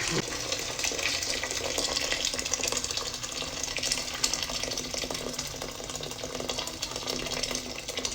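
Water running steadily from a kitchen tap, splashing.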